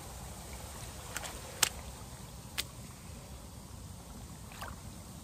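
Footsteps of boots through wet mud and puddles, with a few sharp clicks over a steady low background noise.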